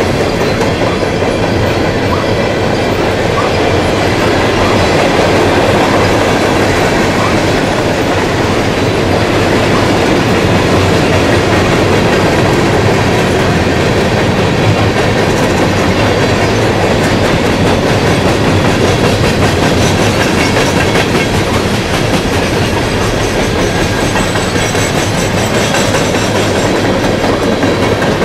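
Freight train cars rolling past close by: a steady loud rumble and clatter of steel wheels on the rails, with a faint high wheel squeal near the end.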